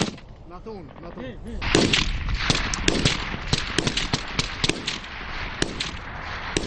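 Small-arms gunfire in battle: many sharp shots cracking in quick, irregular succession from about two seconds in, some close together like automatic fire.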